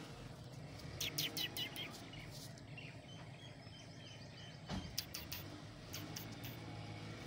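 Faint bird chirps in short clusters, about a second in and again near the end, over a low steady hum.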